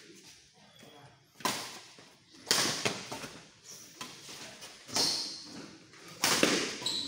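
Badminton rally: rackets striking the shuttlecock four times at uneven gaps of one to two and a half seconds, each hit sharp and echoing in a large hall.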